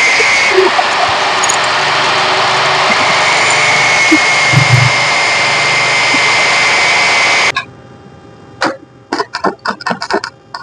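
Loud steady rushing noise with a thin high whine, cut off abruptly about seven and a half seconds in; after it come a few short clucks of chickens.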